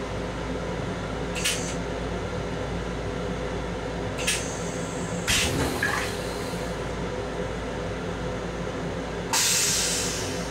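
Rinse water from a Long Island Rail Road M7 railcar's stainless steel toilet spraying into the bowl in several short hissing spurts, then a longer, louder hiss about nine seconds in, over a steady background hum.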